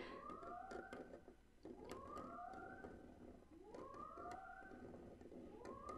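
Faint repeating alarm, a rising whoop about every two seconds with two tones sliding up together and levelling off: a spaceship's emergency alarm sound effect.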